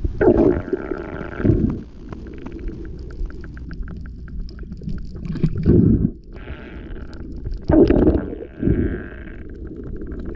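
Underwater sound heard through a diving camera's housing: a steady low rumble with about five loud, muffled gurgling surges of water and handling noise. A run of faint sharp clicks falls in the middle.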